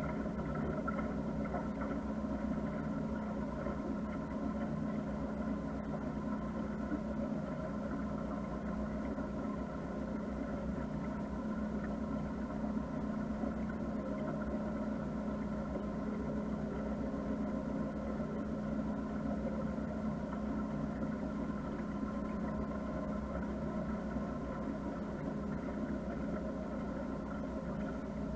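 Motor cruiser's engine running steadily under way: an even hum with several steady tones that does not change in speed or level.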